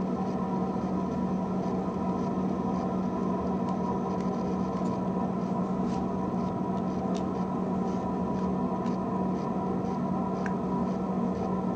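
A steady background hum with a constant low tone that does not change, and a few faint small clicks scattered through it.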